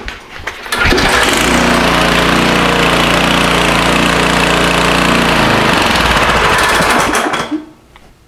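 Small single-cylinder four-stroke engine on a Cub Cadet rototiller starting on its newly replaced recoil starter rope: it catches about a second in and runs steadily for several seconds, then is shut off and winds down near the end.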